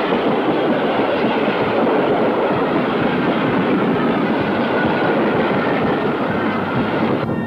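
Train running along the track, a steady noise of wheels on rails. Music comes in near the end.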